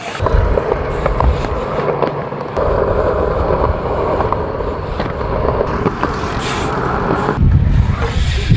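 BMX bike tyres rolling over smooth concrete, a steady rolling noise with a few small clicks. A low rumble of wind on the microphone is strongest in the first couple of seconds and again near the end.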